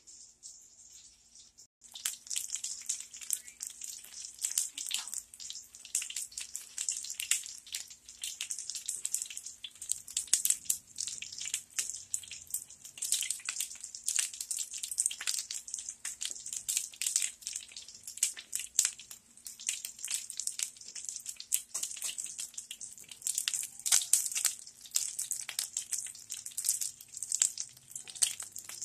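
Chicken legs sizzling in olive oil in sheet pans on a gas grill: a dense, steady crackle that starts about two seconds in.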